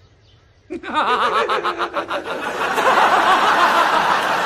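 A moment of near quiet, then several people break into laughter about a second in: quick repeated laughs at first, growing fuller and overlapping toward the end.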